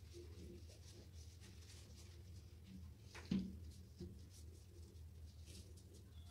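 Faint handling sounds of gloved hands and a plastic bleach bottle working bleach-soaked toilet tissue onto tile grout, over a low steady room hum, with one brief louder bump about three seconds in.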